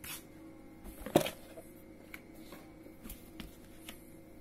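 Cardboard phone box being handled and set aside on a bedsheet: a thump about a second in, a softer knock at the start, and a few light taps and rustles after.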